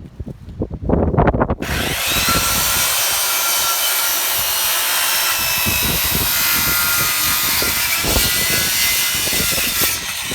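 A power saw cutting through rough-cut lumber. It starts about a second and a half in, runs steadily as a loud hiss with a faint whine that sags slightly, and stops near the end. Low thumps of wind or handling come before the cut begins.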